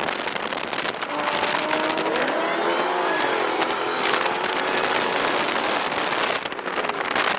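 Dodge Scat Pack's 392 HEMI V8 running through catless aftermarket pipes, rising and falling in pitch about two to three seconds in.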